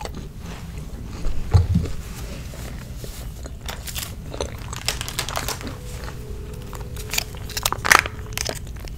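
A person biting and chewing crunchy food right at the microphone, with close mouth sounds. The loudest crunches come about a second and a half in and again near the end.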